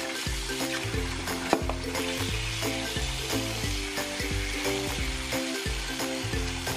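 Kitchen tap running, water splashing into a steel sink and then filling a stainless steel pot of peeled potatoes, with background music and one sharp knock about one and a half seconds in.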